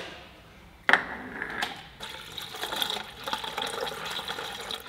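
Distilled water poured from a plastic bottle through a funnel into a Tesla Model 3's coolant reservoir, filling the cooling system. It starts suddenly about a second in and then runs as a steady gurgling pour.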